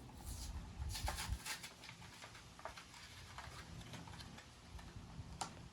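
Crackling and rustling of a Pokémon card pack wrapper being handled and torn open, a dense cluster of crinkles in the first second and a half, then scattered small clicks and crinkles.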